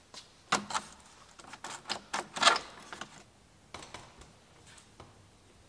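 Cabin door latch and handle of a 1947 Cessna 140 being worked: a quick run of sharp clicks and knocks, the loudest about two and a half seconds in, then a few fainter clicks. The latch's bent internal parts have just been straightened and it now works correctly.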